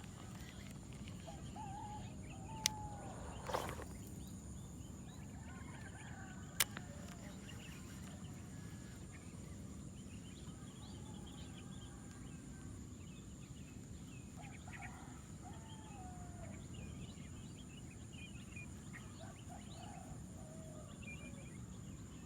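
Outdoor ambience: many short chirping bird calls over a steady high-pitched insect drone and a low background rumble. Two sharp clicks, a few seconds apart, and a brief rush of noise come early in the stretch.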